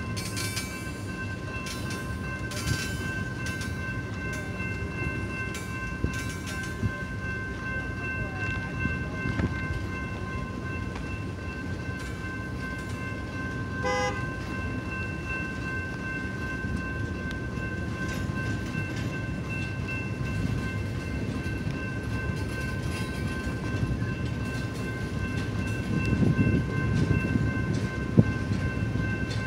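Double-stack intermodal container train rolling slowly past, its cars and wheels making a steady rumble with clicks and clanks, louder near the end. A steady high ringing tone is held over the rumble.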